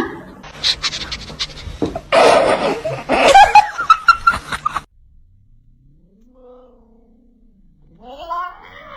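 A cat meowing and yowling, mixed with loud noisy clatter through the first half. After a quieter stretch, a drawn-out call bends up and down near the end.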